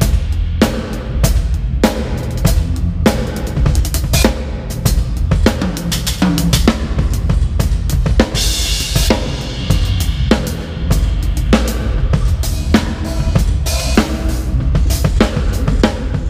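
Tama Starclassic drum kit played live in a busy groove: bass drum, snare and cymbals hit in quick succession over a heavy bass, with a burst of cymbal wash about eight seconds in.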